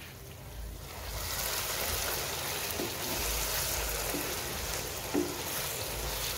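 Okra, onion and tomato sizzling steadily in oil in a nonstick frying pan, with a few light knocks of the spatula stirring it. The sizzle builds up about a second in.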